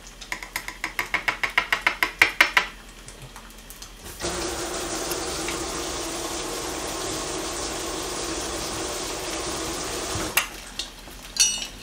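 A metal spoon tapping quickly against a small dish, about eight ringing taps a second for two seconds, as paste is scraped off into it. After a pause comes a steady rushing noise that starts and stops abruptly, lasting about six seconds.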